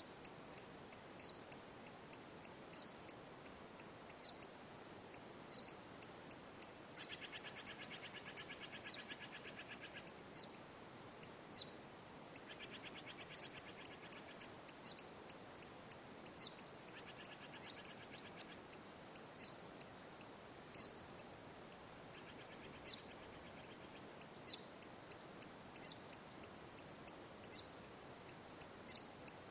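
A small animal giving short, sharp, high-pitched chip calls, about two to three a second, over and over. A lower, buzzy trill comes in four times, each for one to three seconds.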